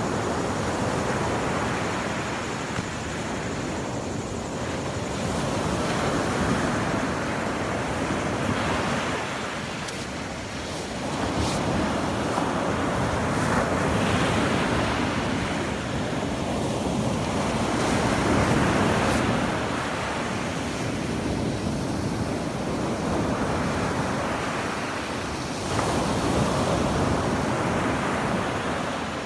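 Sea waves breaking and washing up a sand beach, the surf swelling and falling back every few seconds.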